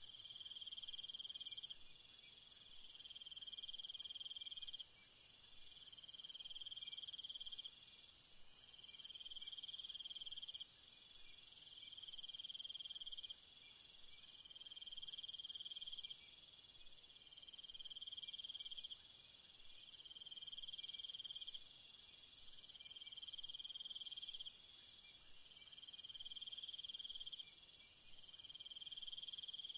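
Night insect chorus: a steady, very high-pitched shrill, with a lower trilling call repeating in phrases of about a second and a half, roughly every two seconds.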